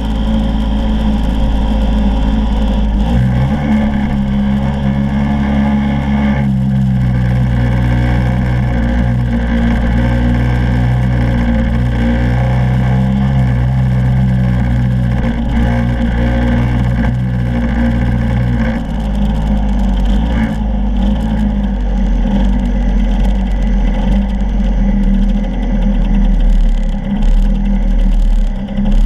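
Scooter engine running under steady throttle, heard close from its own front-mounted camera, with heavy wind rumble on the microphone. The engine note steps up slightly in the first few seconds, then falls away about two-thirds through as the scooter eases off, leaving mostly wind and road rumble.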